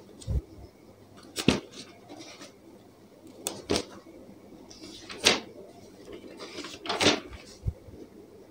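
Handling noise near the microphone: several short, sharp clicks and knocks at irregular intervals, with faint room tone between them.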